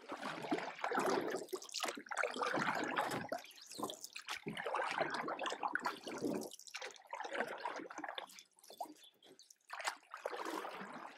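Water splashing and trickling in uneven surges, with a brief lull near the end.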